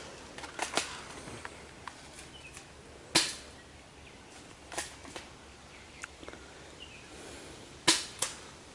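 Scattered single airsoft shots, sharp snapping cracks a second or more apart: the loudest about three seconds in, and a close pair near the end.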